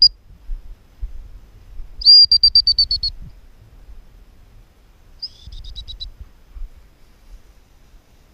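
Three high, trilling whistles: a short one at the start, a longer trill of about ten quick pulses about two seconds in, and a two-note trill about five seconds in.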